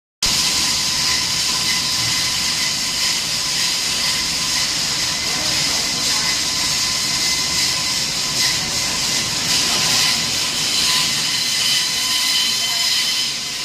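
Steady machine-like noise with a constant high whine over a hiss, starting suddenly and running on without a break.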